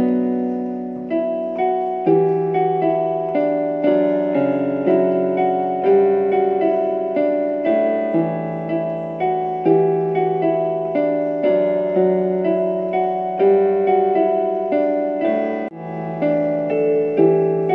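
Portable electronic keyboard played with a piano voice: a slow instrumental with a melody over held chords, each note struck and then fading.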